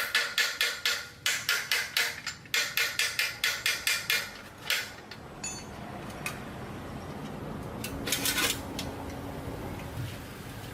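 Hammer striking metal in quick blows, about five a second, in three runs with short pauses, each blow ringing briefly. About eight seconds in there is a short scraping burst.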